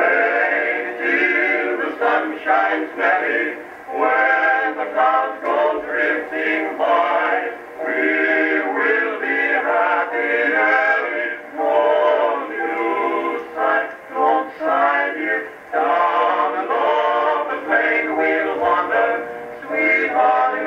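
Male vocal quartet singing in harmony on an Edison electrical disc record, in phrases a second or two long. The sound is thin and narrow, with no deep bass and little top.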